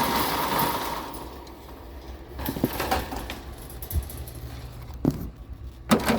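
Metal trundle bed frame being handled, with a few separate knocks and clanks over a low steady rumble.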